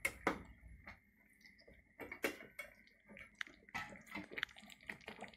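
Metal spoon stirring meat in a pot of tomato sauce and broth: faint, irregular small clicks and taps against the pot with wet liquid sounds.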